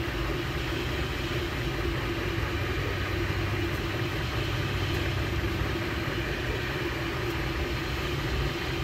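MakerBot Replicator desktop 3D printer running mid-print, a steady mechanical hum.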